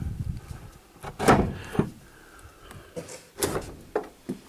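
The bottom half of a split corrugated-metal shed door being unlatched and swung open: a sliding bolt latch clacks and the sheet-metal door knocks and rattles, with louder knocks about one second in and again about three and a half seconds in.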